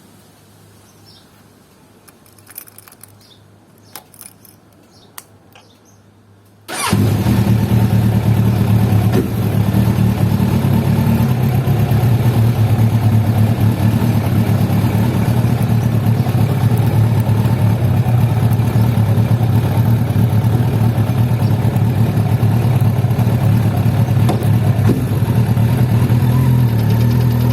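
Suzuki Bandit 1200S inline-four engine: a few light clicks, then about seven seconds in it starts abruptly and settles into a steady idle. The idle carries a noise that the owner places at the top of the cylinder head and suspects may be the starter clutch.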